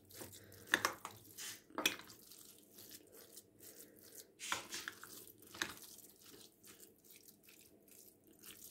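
Metal spoon stirring a moist bulgur-and-rice dolma filling in a glass bowl: faint wet squishing with a few short scrapes of the spoon against the glass.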